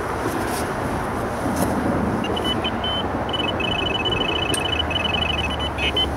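Electronic carp bite alarm beeping: starting about two seconds in, a fast run of short high beeps as line is drawn over its sensor while the rod is taken off the rest. Steady traffic and wind noise underneath.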